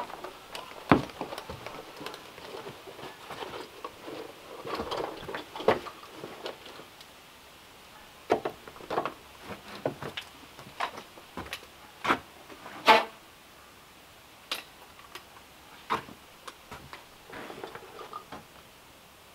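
Scattered knocks and footsteps on wooden boards, then a broom's bristles brushing across the porch boards near the end.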